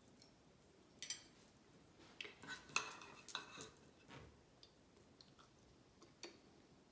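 Knife and fork cutting grilled chicken on a dinner plate: faint, scattered scrapes and clinks of the cutlery against the plate.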